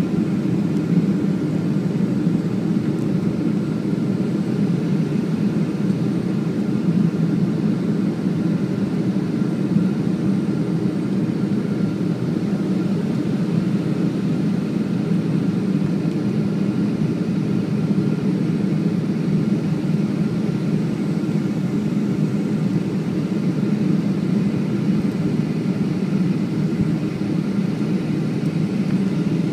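Steady cabin noise of a Boeing 757-200 descending on approach, heard from a window seat over the wing: a low, even drone of engines and airflow, with faint steady whining tones above it.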